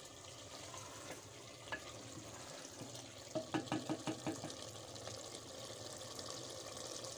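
Wooden spoon stirring cauliflower and peas in a clay handi over a steady watery hiss from the simmering pot. About three and a half seconds in, a quick run of about seven sharp knocks as the spoon strikes the pot.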